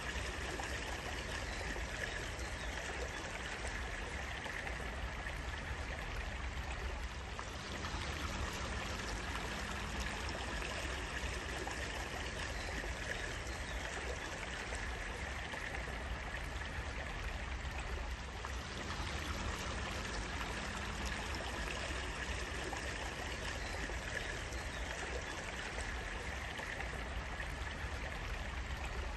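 Water flowing steadily, like a small stream running over stones.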